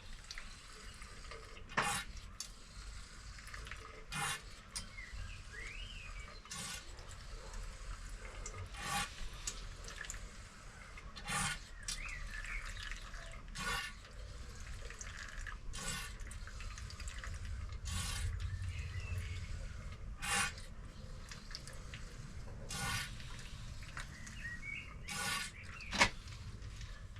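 Fork oil gurgling and spurting out of a KYB open-chamber fork leg into a bowl as the leg is drained, in short bursts about every two and a half seconds.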